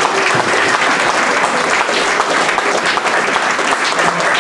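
An audience applauding, dense and steady clapping from many hands.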